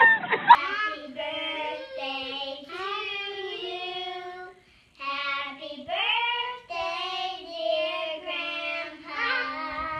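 Young children singing a song, holding each note in short sung phrases, with a brief break about halfway through.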